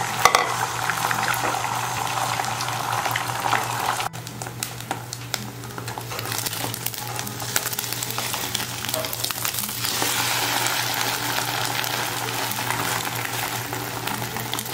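Beaten eggs sizzling as they fry in hot oil in a non-stick pan, with scattered pops and spatula scrapes and taps against the pan. The sizzle drops abruptly about four seconds in and builds again near ten seconds, over a steady low hum.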